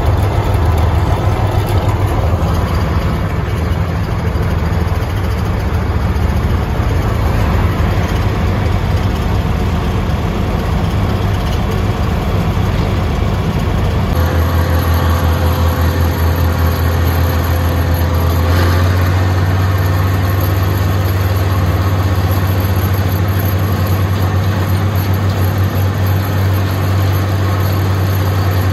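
Vintage farm tractor engines running steadily at road speed, heard from on board. At about the halfway point the sound changes abruptly to a steadier, deeper drone.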